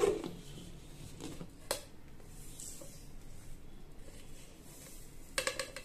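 Steel kitchenware of a mixer grinder being handled: a sharp clack as the jar's lid comes off, another knock under two seconds in, and dry grated coconut and sesame tipped from a steel plate into the steel jar. A fast rattling metallic clatter starts near the end.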